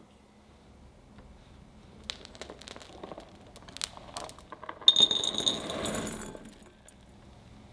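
Chopped white chocolate pieces tipped into a glass bowl, clattering against the glass and making it ring briefly, for about a second and a half. Before that, a few light clicks and scrapes as the pieces are gathered.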